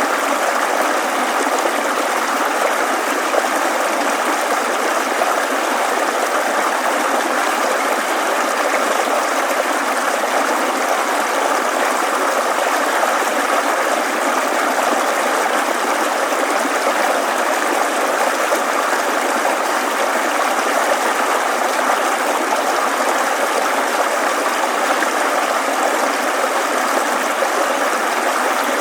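A lively babbling brook flowing steadily, a recorded nature-sound track, with the faint small clicking snips of scissors cutting paper through it.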